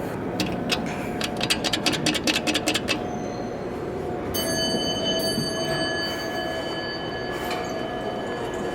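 A quick run of about a dozen sharp clicks, then a long steady ringing tone starting about halfway through, typical of an elevator's electronic arrival chime. A faint steady hum runs underneath.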